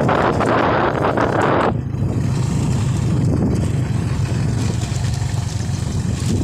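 Motorcycle running steadily while being ridden, a low engine drone. A loud rushing noise, like wind on the microphone, covers it for the first second and a half, then drops away abruptly.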